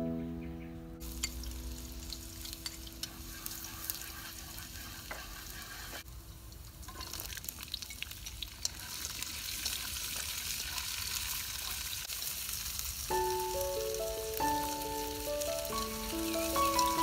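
Green beans sizzling as they fry in a hot wok over a wood fire, stirred with a wooden utensil that clicks and scrapes against the pan. The sizzle briefly drops near six seconds in, then comes back stronger.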